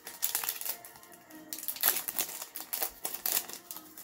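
Foil wrapper of a baseball card pack being torn open and crinkled, in two stretches of crackling, the second longer.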